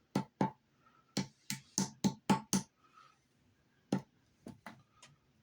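Sharp metal taps from doming small silver pieces, a hammer striking a doming punch: two taps, then a quick run of six at about four a second, then a few more near the end.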